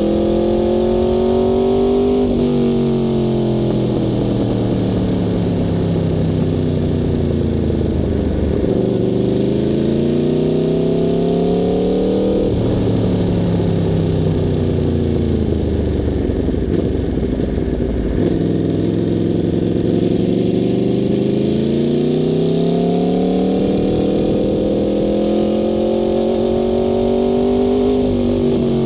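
Aprilia Tuono V4 R's V4 engine under way, its revs climbing and then sagging several times, with sudden drops in pitch at gear changes about two seconds in, about twelve seconds in, and near the end.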